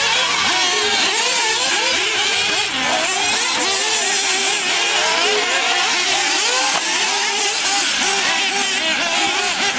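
Several small nitro engines of RC racing buggies revving hard, overlapping one another, their pitch constantly rising and falling as the cars accelerate and back off.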